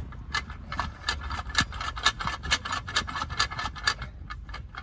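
Quick run of clicks with rubbing, about four or five a second, stopping near the end, as the diaphragm spring fingers of a new Mercedes Vito W639 clutch pressure plate are pressed and worked by hand.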